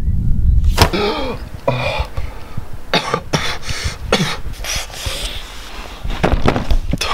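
Wind rumbling on the microphone for the first second. Then a man coughs and gasps in a series of short, harsh fits, with a falling groan in the first.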